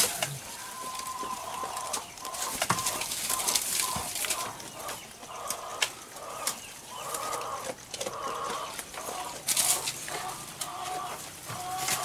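Chickens clucking over and over in short calls, mixed with the crackle and rustle of dry branches and palm fronds as goats step and feed on them.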